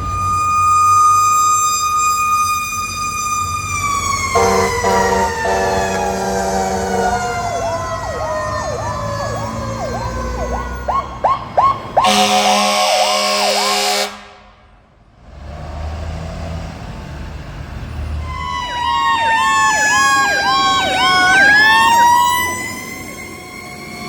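Fire tower ladder and ambulance responding with sirens and air horns: a siren held at a high steady pitch winds down, electronic yelp cycles repeat rapidly, and air horn blasts sound twice in the first half. Near the end a siren wails again, its pitch falling and then rising.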